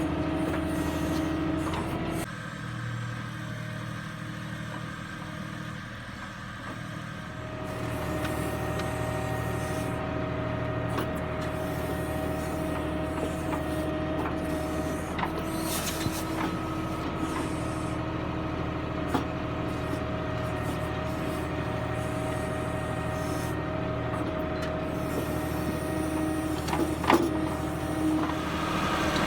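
Tractor diesel engine running steadily while working a backhoe loader. The engine note drops lower and quieter for a few seconds near the start, then picks up again. A few sharp metallic knocks come through, the loudest near the end.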